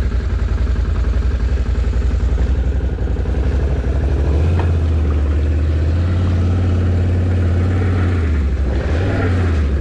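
Can-Am Outlander 1000 ATV's V-twin engine running while the quad sits stuck in deep mud. About four seconds in it revs up to a higher steady pitch, holds for about four seconds, drops back, then blips up briefly once more near the end.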